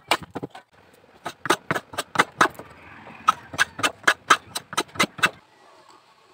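Metal hand plane shaving a small wooden block in quick, short strokes, about four a second. There is a brief pause near the start, and the strokes stop about five seconds in.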